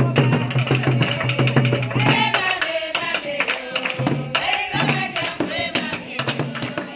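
A group of women singing together, with fast, steady hand-clapping.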